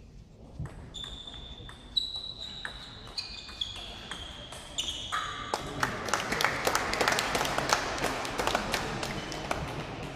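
Table tennis rally: the plastic ball clicks off the bats and table, each hit with a short ringing ping. About halfway through the point ends and a dense patter of hand-clapping from the spectators follows.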